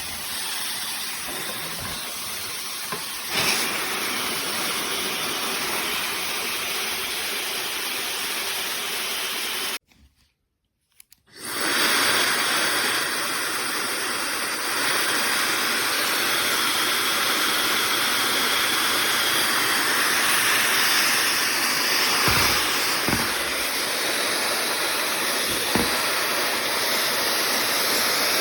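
OSOU 1200 W high-speed ionic hair dryer running, a steady rush of blown air. It cuts out about ten seconds in for a second or so, then comes back louder and rises again a few seconds later.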